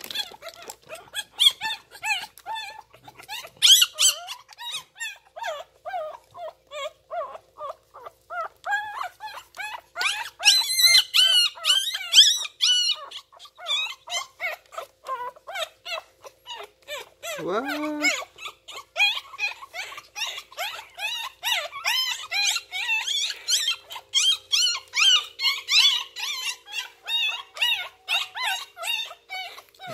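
A litter of newborn puppies crying and squeaking without a break, with many short high-pitched squeals a second that bend up and down in pitch. Once, a little past halfway, there is a single lower call that rises in pitch.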